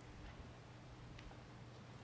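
Near silence: room tone with a steady low hum and a couple of faint ticks.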